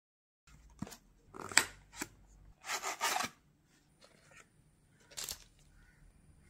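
Packaging being opened by hand: a cardboard box and a clear plastic clamshell tray clicking, scraping and crinkling. A few sharp clicks come first, then a longer crinkling rustle about three seconds in and another brief rustle near the end.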